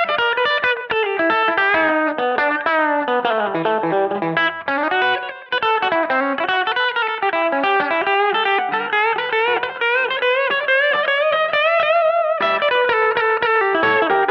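Connexion Telecaster-style electric guitar played through a Mooer GE300 Lite amp modeller, picking fast rockabilly lead lines. Near the end a held note wavers with vibrato and breaks off briefly before the picking resumes.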